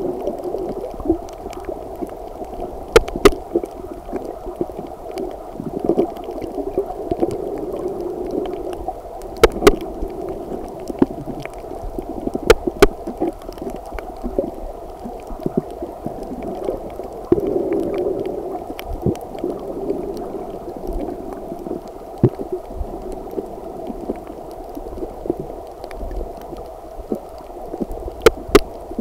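Muffled underwater water noise, a dull wash that swells and fades, with a few sharp clicks: a pair about three seconds in, single ones near ten and thirteen seconds, and another pair near the end.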